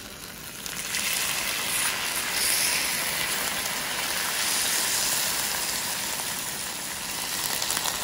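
Hot, freshly baked baklava sizzling as cooled sugar syrup is ladled over it: a steady hiss that builds up about a second in and holds.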